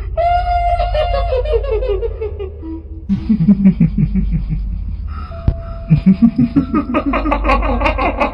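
Eerie staged female ghost (kuntilanak) laughter. A high-pitched cackle falls in pitch over the first couple of seconds, then comes lower pulsed laughter, then rapid high cackling again, over a steady low drone.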